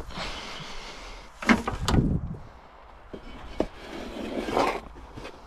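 A long-handled tool scraping and knocking against a wooden tray of straw bedding at the coop's base, with the straw rustling. There are two longer scraping stretches, the first the loudest, and a sharp knock between them.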